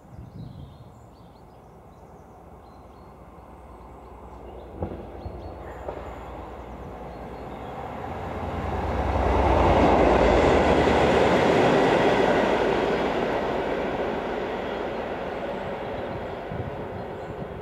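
Class 57 diesel locomotive 57310 passing close by and running away along the line: engine and wheel noise build, peak about ten seconds in, then slowly fade.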